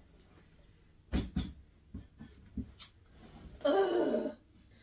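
Knocks and taps from a wooden kitchen cabinet door being opened overhead: two sharp knocks a little after a second in, then a few lighter taps and a click. Near the end, a short wordless vocal sound from a woman, like a strained hum.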